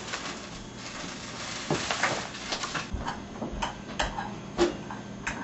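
Quiet kitchen clatter: a scattering of light knocks and clinks of dishes and utensils over a steady hiss.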